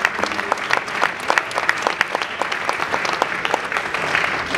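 Audience applauding, with a few nearby claps standing out.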